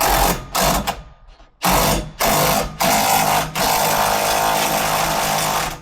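Power tool driving a fastener into the brace, run in several short bursts and then held for one long continuous run of about two and a half seconds that stops abruptly near the end.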